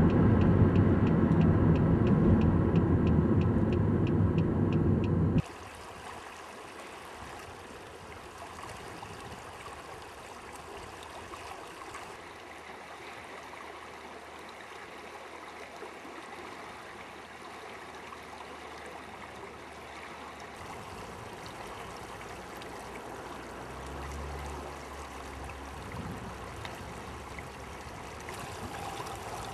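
Road noise of a moving vehicle, a steady low rumble, which cuts off abruptly about five seconds in. After that, a shallow river ripples over stones with an even rushing sound. A brief low rumble comes near the end.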